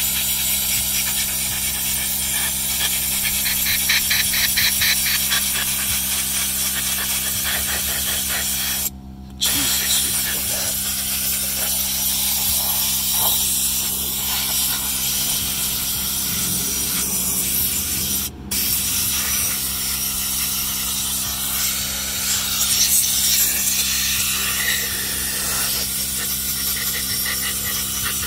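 Compressed-air blow gun hissing as it blasts dust out of a dirty electric motor's housing and windings. The air cuts off briefly twice, about nine and eighteen seconds in, as the trigger is released. A steady low hum runs underneath.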